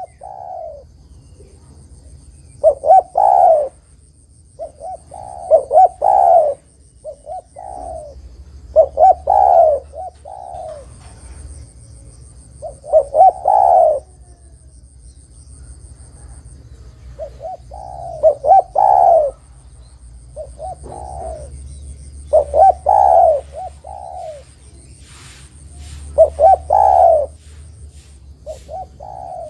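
Spotted dove (tekukur) cooing: a short phrase of several coos, repeated about every three to four seconds.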